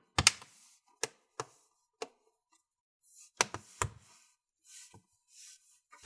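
Bottom cover of an HP Envy x360 laptop snapping into place as it is pressed down onto the chassis: about seven sharp clicks at uneven intervals as its clips catch, the loudest in the first second, with hands brushing over the cover between them.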